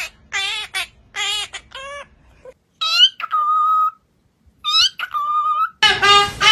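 Parrot calling: a string of short, wavering squawks, then two calls that sweep upward and hold a steady whistle-like note. A louder, fuller sound begins near the end.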